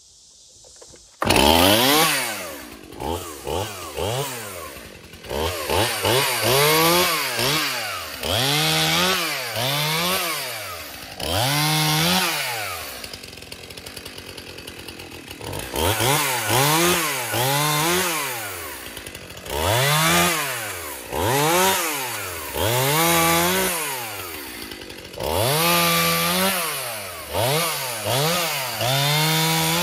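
Stihl MS291 two-stroke chainsaw starting up about a second in, then revved up and down again and again, dropping back to idle between bursts.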